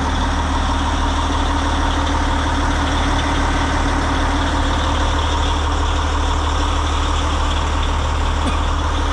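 Heavy diesel engine idling steadily, a deep even hum with no change in speed.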